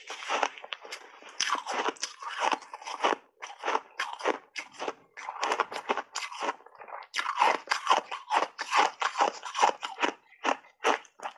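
Hard block ice being bitten and chewed close to the microphone: many sharp, irregular crunches in quick succession, with a brief pause about six and a half seconds in.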